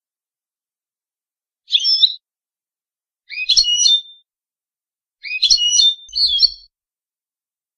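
European goldfinch singing four short phrases of quick high chirps in the Shami (Levantine) song style, the last two back to back.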